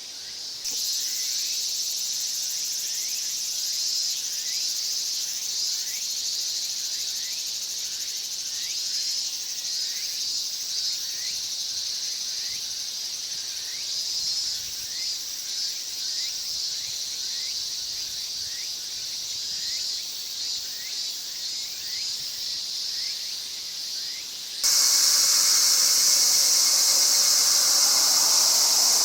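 Cicadas calling: a steady, high, continuous buzz. About 25 seconds in it switches abruptly to a louder, harsher buzz.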